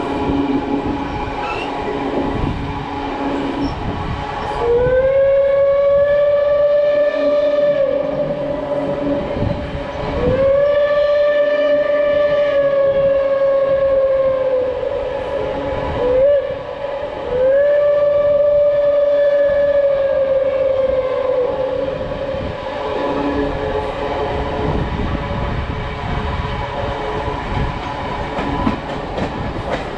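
Steam locomotive whistle of Reading & Northern 2102 blowing two long blasts, a short toot and a final long blast, the grade-crossing signal, each blast rising as it opens and sagging as it closes. Under it runs the steady rumble and clatter of the passenger car rolling on the rails.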